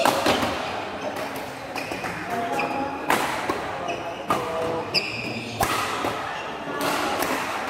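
Badminton racket strikes on a shuttlecock during a rally: several sharp cracks a second or so apart, with short high squeaks between them.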